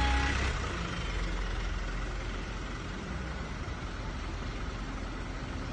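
Box truck's engine passing close, loudest at the start and fading within the first second as it moves away, leaving steady road and street noise.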